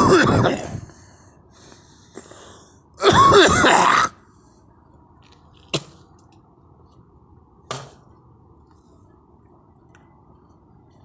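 A person coughing: a loud, harsh cough at the very start, a softer one about two seconds in, and another loud, drawn-out cough about three seconds in. Two sharp clicks follow, about two seconds apart, over a faint steady hum.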